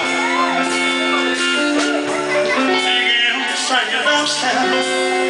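Slow ballad backing music with guitar and long held chords, without lead vocals.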